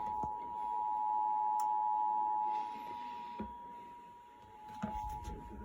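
Emergency Alert System attention signal for a Required Monthly Test: two steady tones sounding together. The tones drop in level about two and a half seconds in and carry on more faintly.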